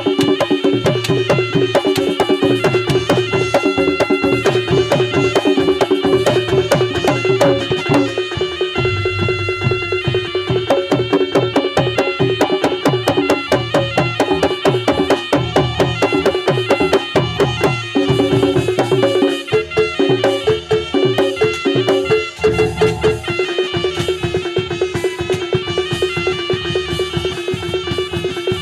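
Live Javanese Reog ensemble music: drums and struck percussion keep a fast, steady beat under a held drone and melodic lines.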